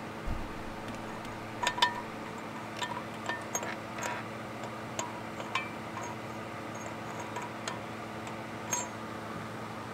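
Scattered light clicks and clinks of propeller hub parts being handled and slid onto a boat outdrive's propeller shaft.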